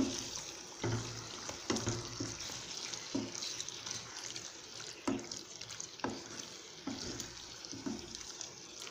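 Wooden spatula stirring chicken pieces in a wet masala in a non-stick pan, over a steady frying sizzle, with a soft knock or scrape against the pan about once a second.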